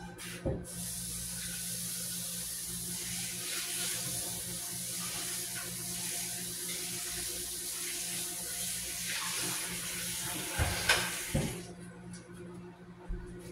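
Kitchen tap running into a sink, a steady hiss of water for about eleven seconds, with a few knocks just before the water cuts off.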